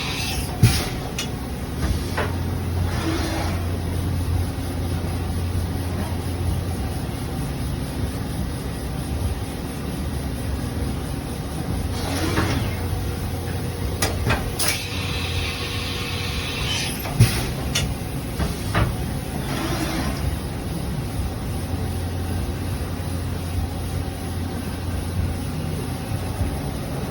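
Haas EC-300 horizontal machining center running through a cycle: a steady mechanical hum with a deeper drone that comes and goes, broken by sharp clunks and knocks and several short hisses.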